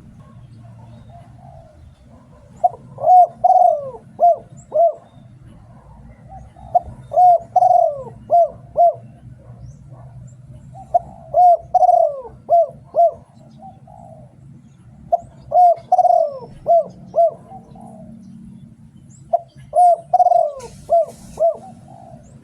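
Spotted dove cooing: the call of a decoy bird used to lure wild doves. It gives five alike phrases about four seconds apart, each a few slurred coos followed by two or three short clipped notes.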